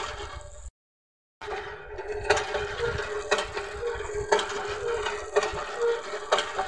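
Hand pump worked by an elephant's trunk: the handle knocks about once a second over water splashing from the spout. The sound cuts out completely for a moment about a second in.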